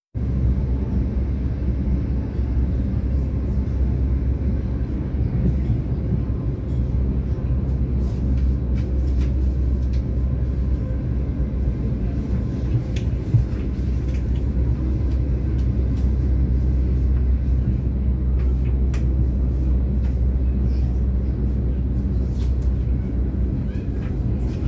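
A train running with a steady low rumble, with scattered light clicks and rattles over it.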